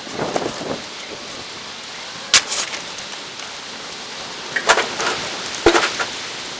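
A few sharp clicks and knocks, like parts or tools being handled, over a steady hiss. The loudest click comes about two and a half seconds in, and two more cluster near the end.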